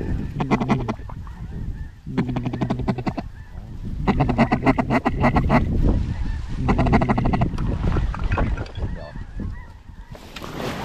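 Duck quacking in four raspy runs of calls, each one to two seconds long, with a few weaker calls after them.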